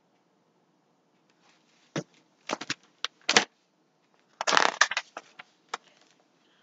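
Hardcover picture book being handled and set down: a few sharp knocks and taps, then a longer burst of scraping and rustling about halfway through, with a couple more taps after.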